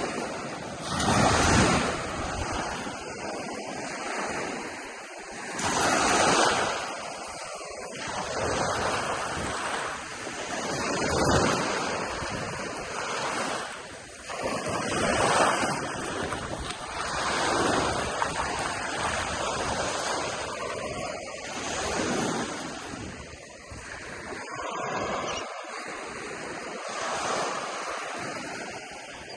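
Ocean surf breaking on a beach, the wash swelling and fading about every four to five seconds.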